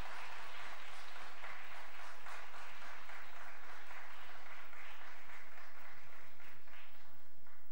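Audience applauding, the clapping stopping near the end.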